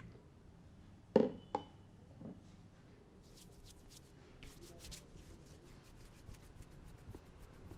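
A barber's hands working on a customer's head during a head massage: two sharp, loud hits a little over a second in, then a run of quick, light crackling strokes.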